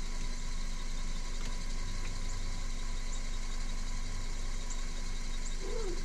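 A Hyundai car's engine idling steadily while it serves as the jump-start source, an even low hum with no change in speed.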